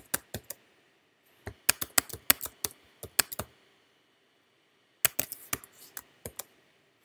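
Typing on a computer keyboard: quick runs of sharp key clicks, with a pause of about a second and a half near the middle.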